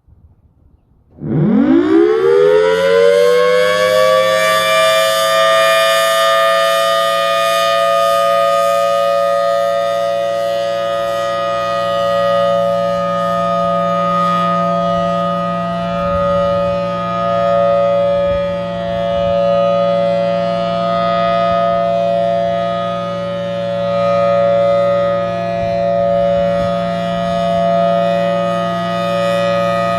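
Federal Signal Thunderbolt 1000AT blower-driven outdoor warning siren starting up: about a second in it winds up from silence with a fast rising pitch, then holds a loud, steady two-tone wail that swells and fades slightly in loudness as the horn turns.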